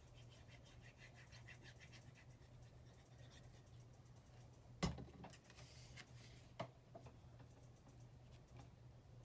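Faint handling of paper and a liquid glue bottle while glue is put on paper cloud strips: soft small ticks and rustles over a low hum, with one sharp knock about five seconds in and a smaller one near seven seconds.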